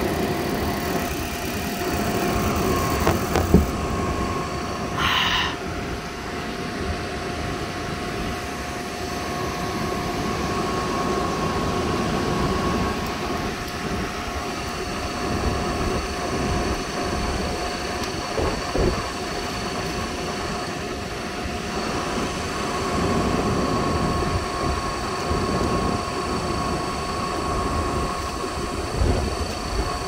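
Gas furnace running, with a steady rumbling drone and constant thin tones over it. There is a brief higher-pitched sound about five seconds in.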